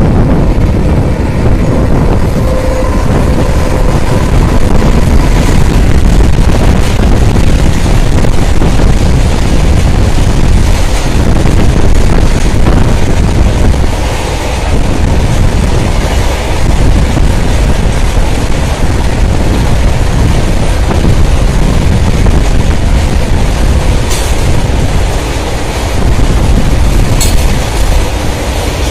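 Long freight train of coal-loaded BOXN open wagons behind a WAG-9 electric locomotive passing close by: a loud, continuous rumble of steel wheels on rail, with two sharp clacks near the end.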